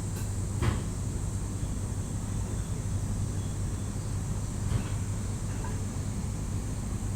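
A single short knock about a second in and a fainter one near five seconds, over a steady low hum and hiss.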